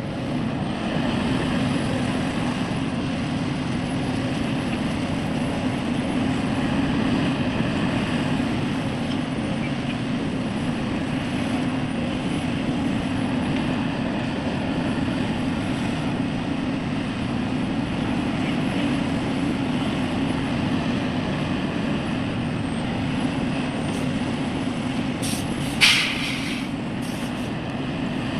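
Heavy diesel machinery running steadily, with a short, sharp hiss about two seconds before the end.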